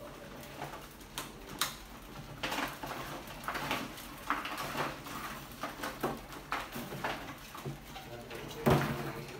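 Rats scrabbling and scurrying over a wire-mesh lid, a wooden ladder and a glass tank: an irregular patter of clicks, scratches and small knocks, with a louder thump near the end.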